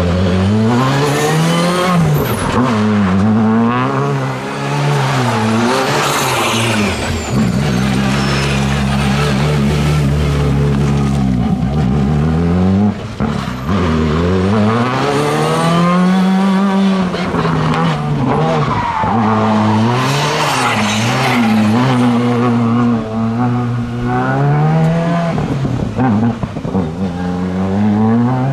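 Škoda Fabia R5 rally car's 1.6-litre turbocharged four-cylinder engine revving up and dropping again and again as it is flung through tight turns, with tyres squealing and skidding on the tarmac at times.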